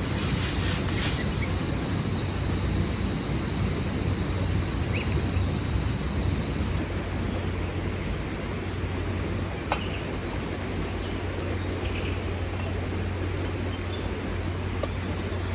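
Steady rain, an even hiss with a low rumble underneath. A single sharp click comes about ten seconds in.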